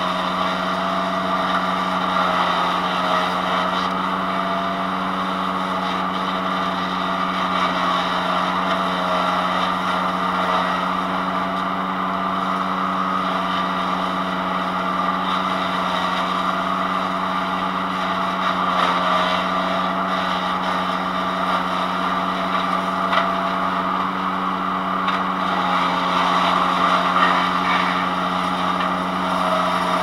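PowerKing PK0915 wood chipper's gas engine running steadily at full speed, with a few brief crackles as branches pass through the chipper.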